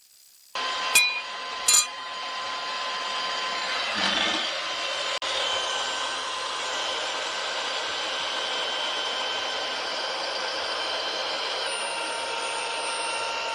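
Milwaukee 18V cordless portable bandsaw running steadily, its trigger held on with rubber bands. Two sharp clicks come about a second in, and the motor's pitch shifts near the end.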